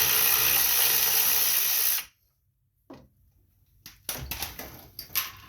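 Power driver spinning a 3/8-inch nut off a leaf vacuum's tank bolt. It runs steadily for about two seconds and stops abruptly. A few faint metal clicks and clatter follow near the end.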